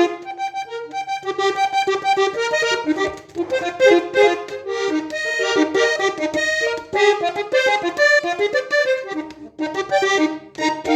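Parrot button accordion playing a melody over chords, with brief pauses about three seconds in and again near the end.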